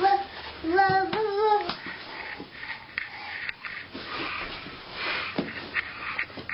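Toddler's sing-song babbling for about the first second and a half, then breathy huffing as he climbs, with a few soft knocks.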